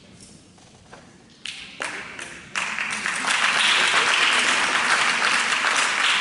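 Audience applause in a hall at the end of a gymnastics floor routine. A few single claps come about a second and a half in. The full applause breaks out about two and a half seconds in and grows louder.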